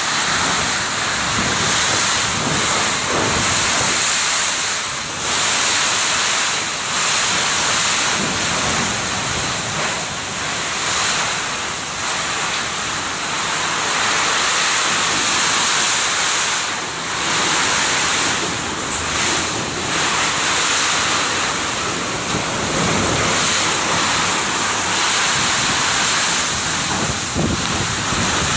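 Super typhoon winds blowing hard and steadily, gusting with brief lulls every few seconds, buffeting the microphone.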